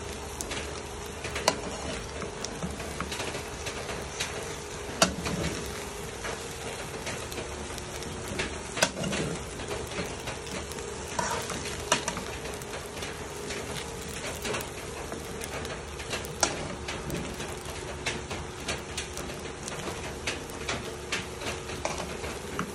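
Fried rice and shredded cabbage sizzling in an aluminium pan as a spatula stirs and tosses it, scraping and knocking against the pan many times.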